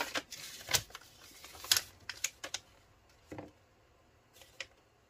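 Crumpled brown paper crackling and rustling as it is handled, in a quick run of sharp crinkles that thins out after about three seconds into a few fainter ones.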